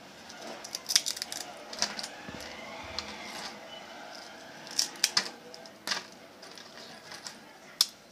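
Haldiram's potato chips crackling and crunching as fingers handle them against the crinkly plastic chip packet: a string of sharp, irregular crackles, the loudest about a second in, around five seconds in and near the end.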